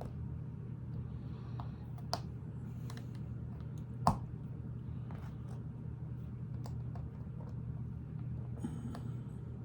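Lego bricks clicking and rattling as pieces are handled and pressed together, with one sharp snap about four seconds in. A steady low hum runs underneath.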